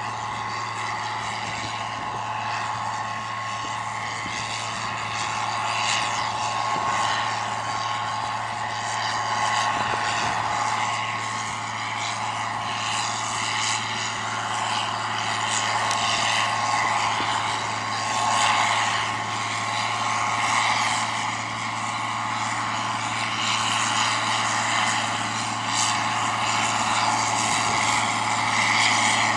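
John Deere 4650 tractor's six-cylinder diesel engine running steadily while pulling a planter, a constant low hum with a steady higher whine and light rattling over it.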